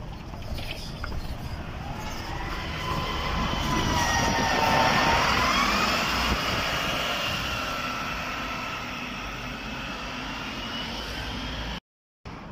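Irisbus Agora L articulated city bus passing close and pulling away, its engine whine dipping in pitch and then rising as it accelerates. It is loudest about halfway through, then fades, with a brief total dropout near the end.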